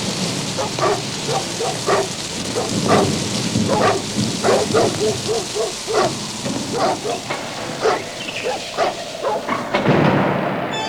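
Dogs barking over and over, several short barks a second and overlapping, over a steady hiss, with a rush of noise near the end.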